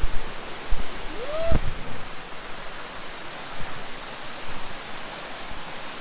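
Waterfall: a steady rush of falling water, with two low thumps in the first two seconds.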